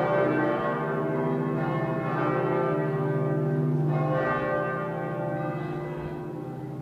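Church bells of Giotto's bell tower ringing, a fresh strike about every two seconds over the ringing tones, fading toward the end.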